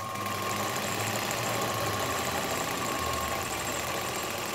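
Singer 31-15 industrial sewing machine, driven by its industrial motor through a V-belt, stitching through cotton fabric at a steady speed: a rapid, even clatter of the needle mechanism with a steady whine.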